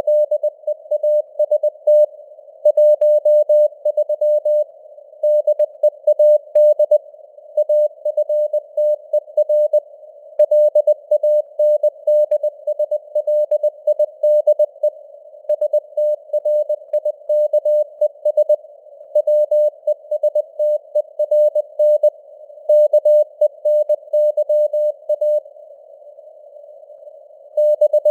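Morse code at 20 words per minute: a single steady beep keyed on and off in dots and dashes over a narrow band of simulated radio hiss, as heard through a receiver's CW filter. It breaks off for about two seconds near the end, then resumes.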